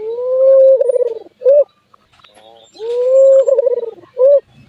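Albino Barbary dove (burung puter) cooing twice. Each call is a long held note that breaks into a quick stuttering roll and ends with a short separate note. The keeper presents this as an unusual call for the bird.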